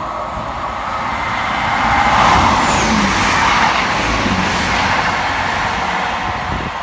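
Two coupled Class 158 diesel multiple units passing fast through a station. The rush of wheels on rail and engine noise swells to its loudest about two seconds in, stays loud, then eases slightly.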